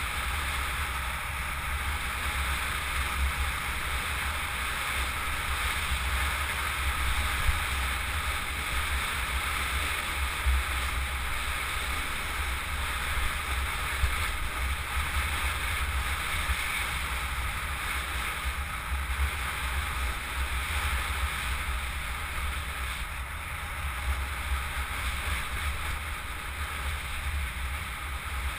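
Steady wind rushing and buffeting over a helmet-mounted camera's microphone as a mountain bike rolls fast along asphalt, with a heavy low rumble.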